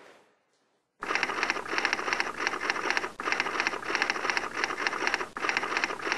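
Typewriter-style typing sound effect: rapid key clicks that start abruptly about a second in and run in quick runs broken by two brief pauses.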